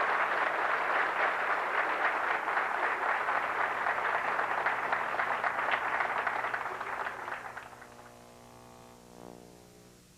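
Audience applauding, many hands clapping at once, dying away about eight seconds in.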